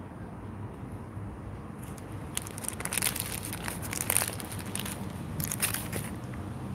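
Paper food wrapper crinkling and being crumpled in the hand, in crackly bursts from about two seconds in until about six seconds in.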